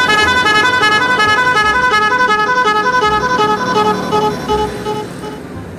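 Indonesian 'telolet' bus horn, a multi-tone horn playing a quick run of alternating notes that fades out near the end.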